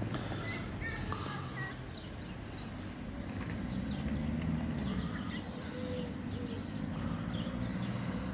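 Outdoor street ambience: small birds chirping in short bursts over a steady low hum of traffic.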